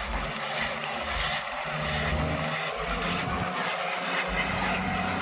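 A vehicle driving, with steady road and engine noise.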